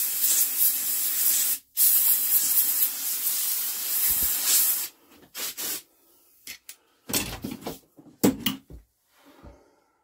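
Compressed-air blow gun hissing in two long blasts, about two and three seconds long, blowing crud out from around an old engine's crankcase bolts. After that come a few light knocks and clunks.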